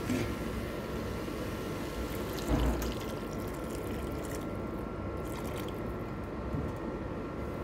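Pepper broth poured from a container into a pan of minced chicken and rice, a steady liquid pour and splash, with a short knock about two and a half seconds in.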